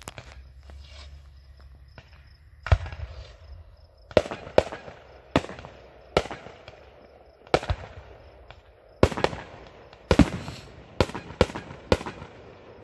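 Aerial firework shells bursting in the sky: a string of about fifteen sharp bangs starting about three seconds in, several coming in quick pairs, each trailing off in a short echo.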